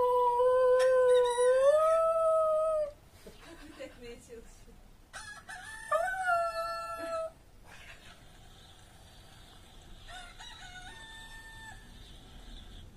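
Small dog howling: one long howl that rises in pitch partway through, then a second, shorter howl about five seconds in, and fainter howls near the end.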